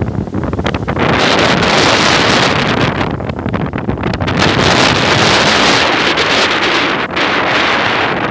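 Sea surf washing onto the shore, a loud rushing that swells and eases, with wind buffeting the microphone.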